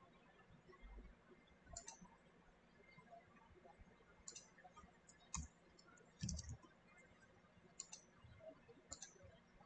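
Scattered quiet clicks of a computer keyboard and mouse while text is edited, about six short clicks, some in quick pairs, over faint room hiss.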